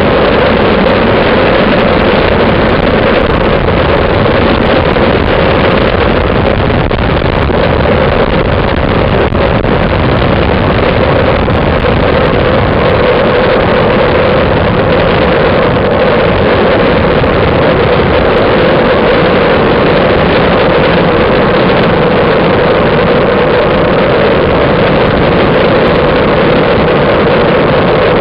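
Steady, loud wind rush buffeting the microphone of a camera mounted on a moving road bicycle, with a constant droning hum and no breaks or changes.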